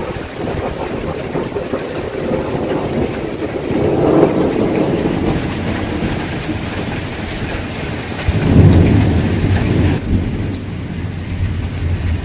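Heavy thunderstorm rain falling steadily, with a low rumble of thunder about eight and a half seconds in, the loudest part.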